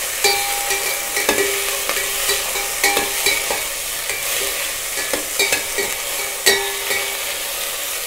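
Chopped vegetables sizzling in hot oil in a stainless steel pot as they are stirred, with a stirring utensil knocking against the steel pot every second or so, each knock ringing briefly; the loudest knock comes near the end.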